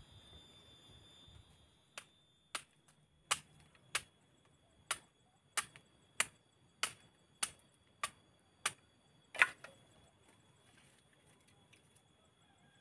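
Machete chopping a hand-held wooden pole: about a dozen sharp strokes at a steady pace of roughly three every two seconds, the last one the loudest, then the chopping stops.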